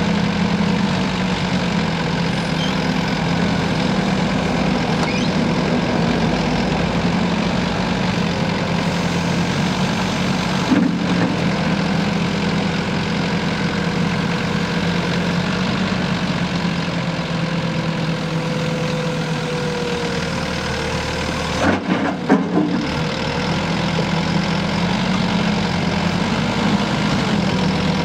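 Mecalac 12MSX wheeled excavator's diesel engine running steadily while its hydraulics swing the boom and clamshell bucket. The engine note dips through the middle and comes back stronger near the end. There is a single click partway through and a short cluster of metallic knocks about two-thirds of the way in.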